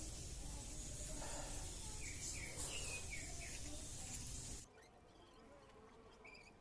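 Mouth and chewing sounds of someone eating rice with sardines and egg, over a steady background hiss. There are a few short chirps about two seconds in, and the background drops abruptly quieter about two-thirds of the way through.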